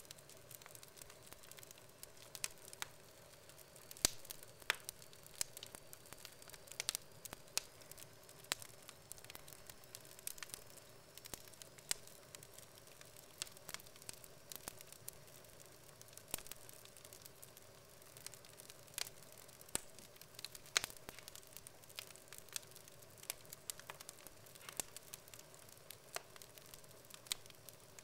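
Wood fire burning in a fireplace: logs crackling and popping irregularly over a faint steady hiss, with a few sharper pops standing out.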